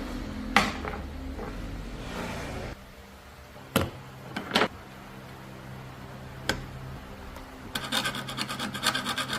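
Hand file working the teeth of a band saw blade: a few sharp metallic clicks and taps, then a quick run of rasping file strokes near the end, over a low steady hum.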